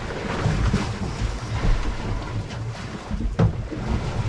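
Strong wind buffeting the microphone over the wash of waves against a drifting boat's hull.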